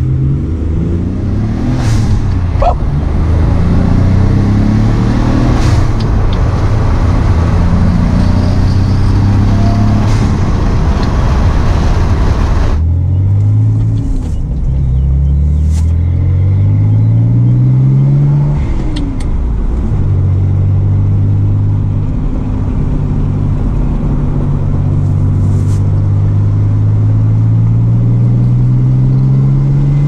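Twin-turbo Nissan 300ZX's 3.0-litre V6 heard from inside the cabin, accelerating through the gears with a manual gearbox. Its note climbs, drops at each upshift and climbs again, then settles into a steady, slowly rising run near the end.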